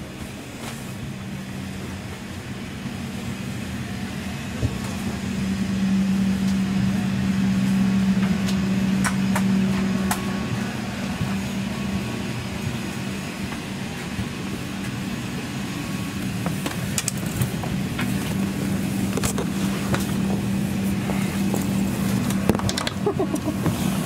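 Steady cabin hum of an Embraer E190 parked at the gate, with a low droning tone of the air and ventilation system that swells about five seconds in and carries on. Scattered clicks and knocks sound over it.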